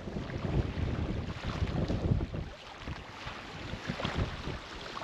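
Wind buffeting the microphone: an uneven, gusty low rumble that swells and drops.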